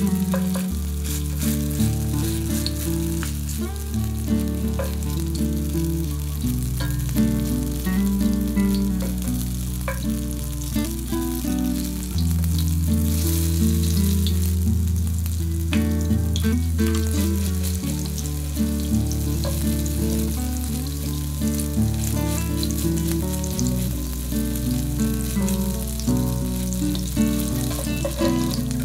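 Tofu-and-vegetable patties sizzling and crackling in hot oil in a frying pan, with wooden spatulas scraping and pressing as more batter is added and shaped. A background music track with sustained low notes that change every few seconds plays underneath.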